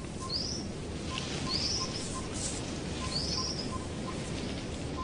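Forest birdsong: a bird repeats a short, high, rising chirp about every second or so. A fainter, lower short note recurs several times in between, over a low steady background rumble.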